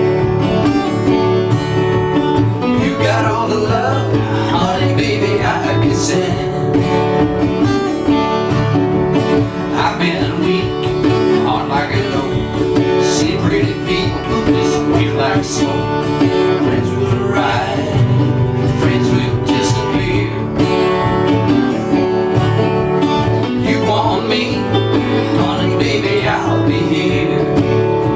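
Acoustic guitar strumming and picking a folk-rock song, with a wavering melody line over it that comes and goes every few seconds.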